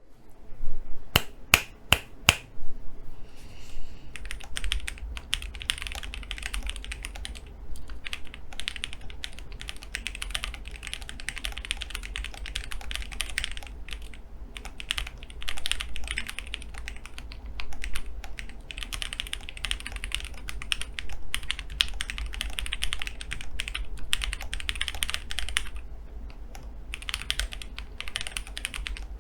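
Typing sound test on a gasket-mounted FEKER Alice 80 mechanical keyboard with JWick Black V2 linear switches, Everglide V2 stabilizers and a PE foam mod, its silicone dampener removed. A handful of separate hard key strikes open, then fast continuous typing with a few brief pauses.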